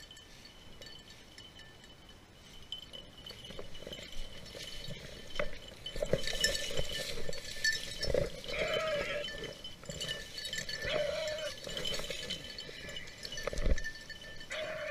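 Beagles whining in short, high calls a few seconds apart, over dry grass and brush rustling.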